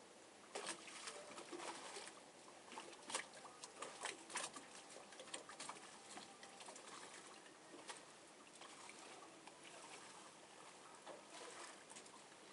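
Faint scattered clicks and rustling over a low steady hiss, busiest in the first few seconds.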